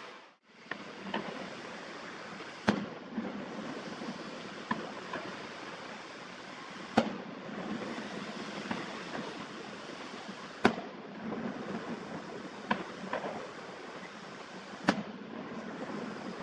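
Aerial fireworks going off: four sharp loud bangs about four seconds apart, with fainter pops in between, over a steady background rush. The audio is played at double speed.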